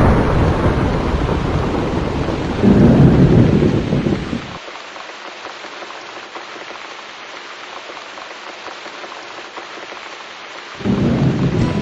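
Thunderstorm: rolling thunder over steady rain. A loud roll fades over the first seconds, a second louder one swells about three seconds in, then only the rain hiss is left until another rumble starts near the end.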